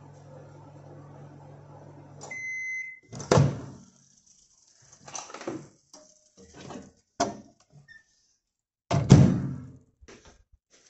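Microwave oven running with a low steady hum that stops about two seconds in, followed by its single held end-of-cycle beep. Then a loud knock as the door is opened, scattered clatter as the plate is taken out, and a louder bump near the end.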